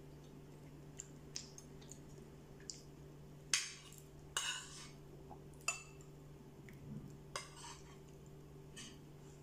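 A metal spoon clinking and scraping against a ceramic bowl and plate in scattered short strokes, the loudest about three and a half seconds in, with chewing of crisp fried paratha between them. A steady low hum runs underneath.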